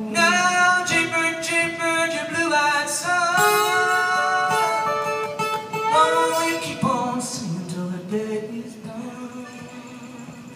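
Acoustic guitar playing the introduction to a folk song, with a melody line over the chords. It fades down over the last few seconds.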